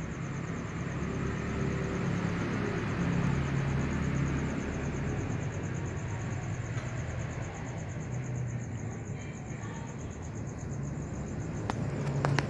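Outdoor night ambience: a steady low rumble under a continuous high-pitched insect trill, with a couple of sharp clicks near the end.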